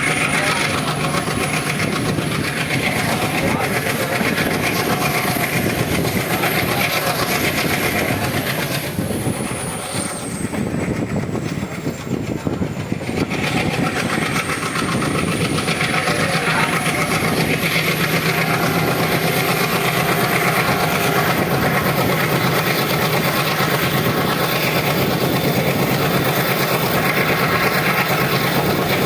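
Train running along the track, heard from on board: a steady rumble of wheels on rails with some clickety-clack. The noise eases for a few seconds about ten seconds in, then returns.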